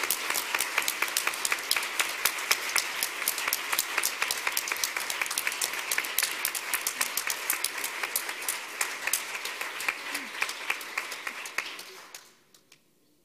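Audience applauding, a dense steady clapping that dies away quickly near the end.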